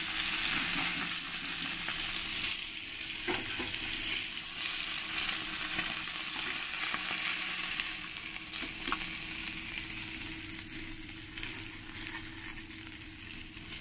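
Tilapia pieces sizzling in hot oil in a nonstick kadai, a steady high hiss that eases off a little toward the end, with a few light clicks of a metal spoon against the pan as the fried fish is lifted out.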